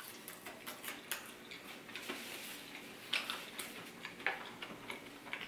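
Close-up chewing with lip smacking: irregular wet mouth clicks, a few louder ones about two, three and four seconds in.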